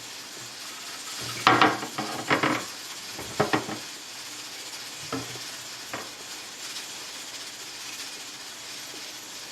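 Hands washing a pressure canner's lid and petcock in a basin of soapy water: a few bursts of splashing and scrubbing with light clinks, the busiest about two seconds in, over a steady faint hiss.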